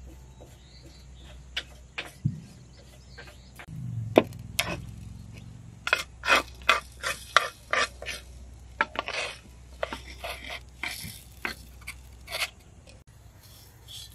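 Wooden spatula stirring and scraping whole spices as they dry-roast in a clay pan, a run of short scrapes and knocks that is thickest through the middle.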